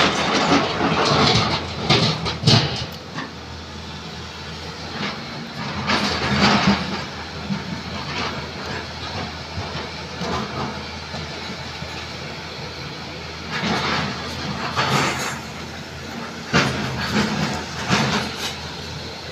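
Heavy diesel engine of a Volvo excavator running steadily, with several loud bursts of broken rock clattering and grinding as the excavator loads stone into a steel dump-truck body. The loudest burst comes just as the bucket empties over the truck.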